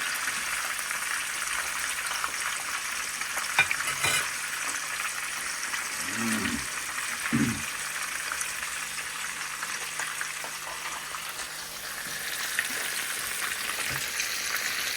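A whole fish frying in hot oil in a pan: a steady sizzle, with a couple of sharp pops about three to four seconds in.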